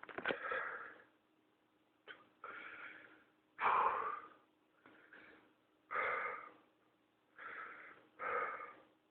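Labored, wheezing breaths of a person with whooping cough (pertussis), about seven in a row, each under a second and some louder than others. They are the gasps of someone struggling for air in a pertussis fit.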